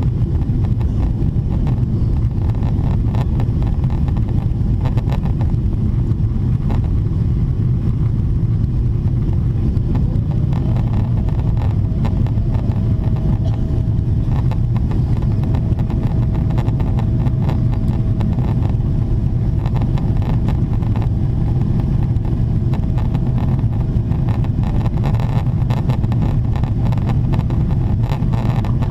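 Steady cabin roar inside a Boeing 777-300ER climbing at climb thrust, a deep rush of airflow and GE90-115B engine noise. A faint steady whine sits in the background through much of it.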